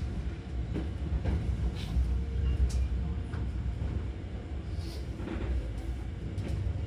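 Hankyu 3000 series electric train car running, heard from inside: a steady low rumble of traction motors and wheels, with a few sharp clicks from the track.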